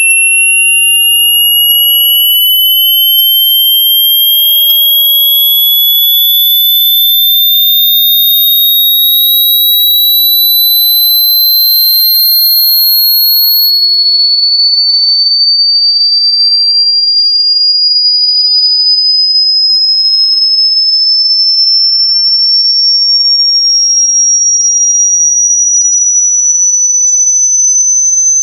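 Loud electronic pure tone gliding slowly and steadily upward in pitch, from a high whine to a much shriller one. It is a single steady tone with no breaks.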